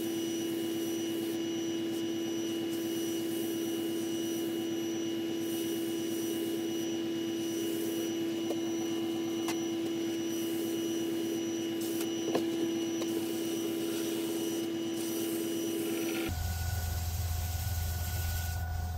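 Wood lathe running steadily with a constant hum while a paper towel is pressed against the spinning lacquered platter. A little over 16 seconds in, the hum changes abruptly to a different pitch.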